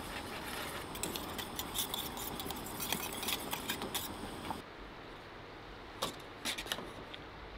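Wire whisk beating soup in a metal pot, its wires clicking rapidly against the pot's side over a steady hiss. After a cut, the hiss drops and a few separate metal clinks follow.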